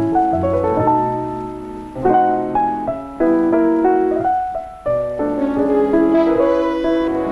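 Piano music: a melody over chords, with fresh chords struck about two, three and five seconds in.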